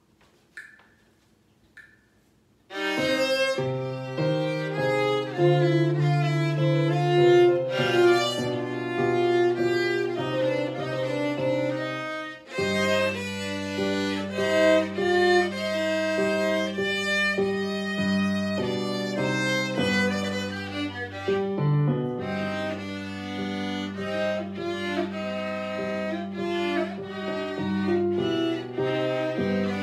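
Viola playing a classical sonata in C minor with piano accompaniment, the bowed melody moving over long sustained low notes. The music starts about three seconds in, after near silence with a few faint ticks.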